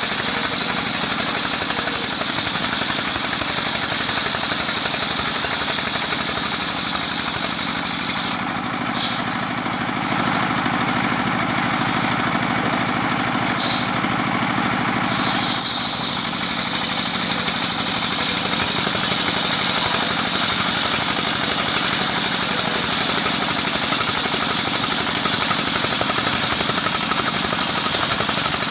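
Engine-driven homemade sawmill running steadily while sawing a coconut-palm log, with a loud high-pitched hiss over the engine's hum. The hiss drops away for several seconds in the middle, apart from two brief flares, then returns louder.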